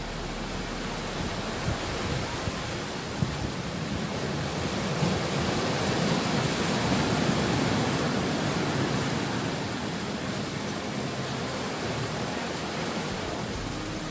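Sea surf washing onto the shore as a steady rush that swells to a peak about halfway through and then eases off. A few small knocks come in the first few seconds.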